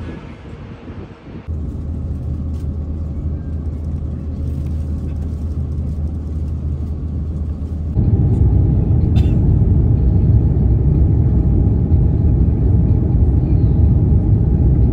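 Airliner cabin noise at a window seat over the wing: a loud, even low rumble of engines and airflow during the climb after take-off, coming in suddenly about halfway through. Before it, a quieter steady low hum with a few steady low tones.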